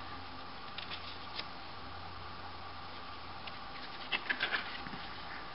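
Steady low hiss and hum of room tone, with a few faint ticks about a second in and a short cluster of soft paper rustles and taps about four seconds in: a hand handling the pages of a large paper sketchbook.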